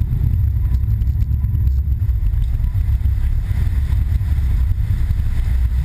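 A sportfishing boat backing down hard: a loud, steady low rumble of the engines and churning wake, with a rushing hiss of water surging against the transom that builds about halfway through.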